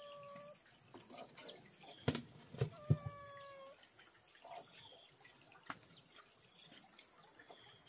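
Chickens calling: two flat, held notes, one ending just after the start and a longer one about three seconds in, with faint high peeps and a few soft knocks.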